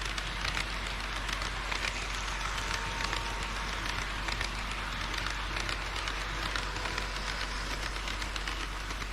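HO-scale model train running along the track: a steady rolling rattle of small wheels on rail, thick with fine clicks.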